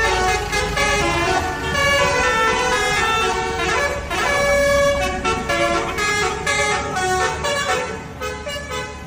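Basuri telolet horn on an odong-odong playing a tune of stepped multi-tone horn notes, over a low vehicle rumble; it dies away near the end.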